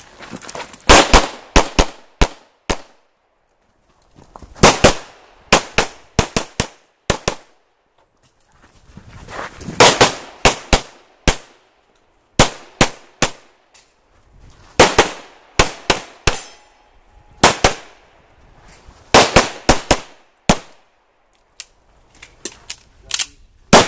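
Handgun fired in rapid pairs and strings of several shots, with gaps of about a second between strings, as a competitor shoots a practical pistol course of fire; each shot leaves a short echo.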